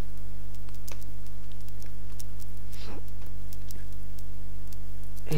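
Steady electrical mains hum from the recording setup, with a few faint clicks of computer keyboard keys being typed.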